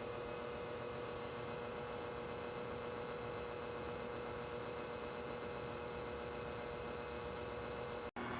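Dreo electric space heater running with its fan blowing: a steady whir of air with a constant hum that cuts off near the end.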